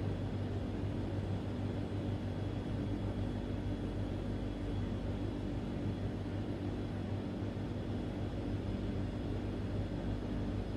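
A steady low mechanical hum with an even background drone.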